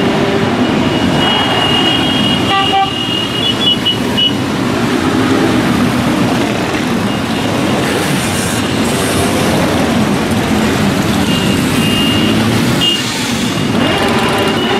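A column of motorcycles riding slowly past, many engines running together, with horns honking: a held blast of about three seconds starting a second in, and another burst of honks for about two seconds near the end.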